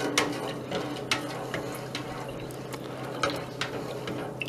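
A utensil stirring seasoned water in an enamel stockpot, mixing salt and spices into it: swirling, sloshing water with occasional clicks of the utensil against the pot.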